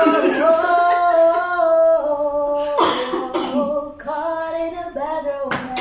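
A woman's voice singing a tune in long held notes, phrase after phrase, with short breaks between phrases about three and four seconds in.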